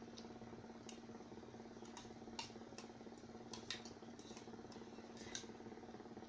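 Someone eating a meal: scattered soft clicks and ticks of eating, the sharpest about two and a half, three and a half and five and a half seconds in, over a steady low hum.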